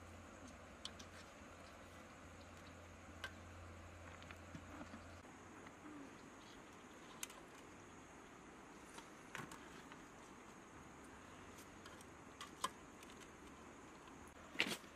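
Scattered light clicks and knocks of a metal ladle against a cooking pot and a plastic bucket, the loudest near the end, over faint quiet with a steady high insect hum.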